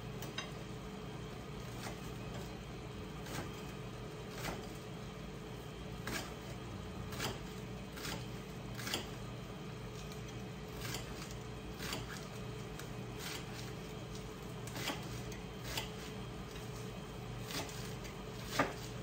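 Knife slicing green onions on a plate: irregular sharp taps of the blade against the plate, about one a second, the loudest near the end, over a steady low hum.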